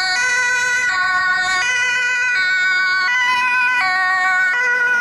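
Two-tone emergency siren of an ambulance (emergency doctor vehicle), alternating between a high and a low pitch about every three-quarters of a second.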